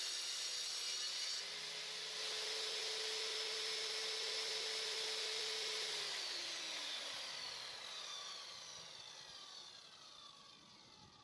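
Table saw cutting 16mm melamine board, then running free with a steady whine. About six seconds in it is switched off and winds down, its pitch falling as it fades.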